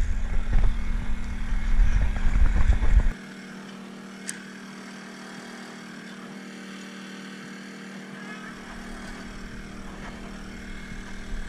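Small portable inverter generator running with a steady hum. For about the first three seconds a loud low rumble sits over it, then cuts off abruptly, and a single sharp click comes about four seconds in.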